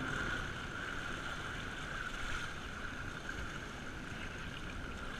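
Water rushing and splashing around a pole-mounted camera held at the surface alongside a boat, with a steady high hum throughout.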